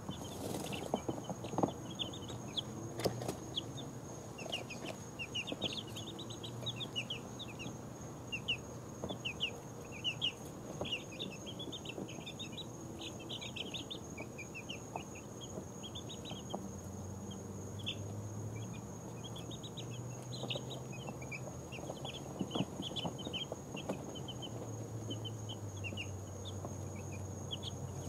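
A brood of two-week-old chicks peeping in a dense, overlapping chorus of short high chirps as they settle down to sleep, with a few light taps and rustles in the first few seconds.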